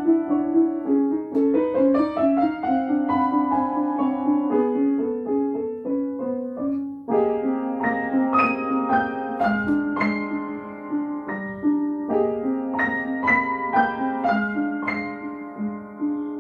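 Upright piano played in a quick run of short notes, with a brief break about seven seconds in before a louder passage.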